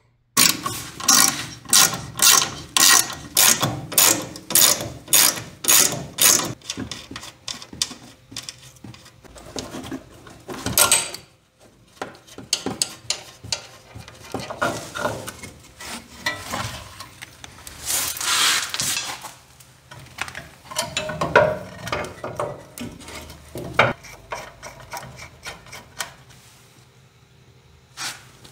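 Hand tools and metal parts being worked during a truck suspension install: a regular run of sharp strokes, about two a second, for the first six seconds, then scattered clanks, scrapes and rubbing as parts are handled and fitted.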